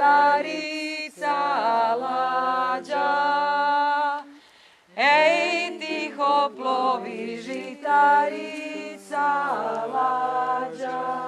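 A mixed group of men's and women's voices singing a song together a cappella, in long held notes. There is a short pause about four seconds in before the next line starts.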